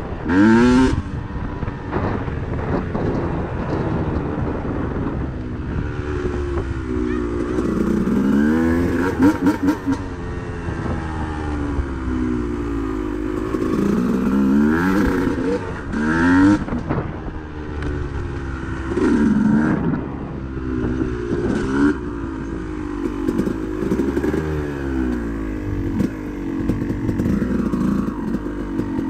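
Dirt bike engine under riding load, its pitch repeatedly climbing as it accelerates and dropping back as it shifts or rolls off the throttle, with some clatter over rough ground.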